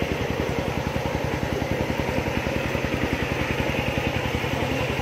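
A small engine running steadily at idle-like speed, with an even pulsing beat of about ten a second.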